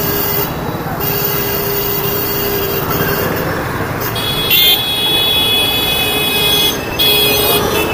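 Hero Destini 125 scooter riding through city traffic: a steady engine and wind-noise rush. Vehicle horns sound over it, one held for about two and a half seconds around the middle, with a loud blast near its start, and another short honk near the end.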